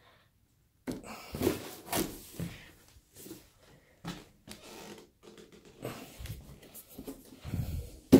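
Handling noises from a wooden wall display case being tilted and turned round on a hardwood floor: irregular rubbing, scraping and knocks, with a sharp knock near the end.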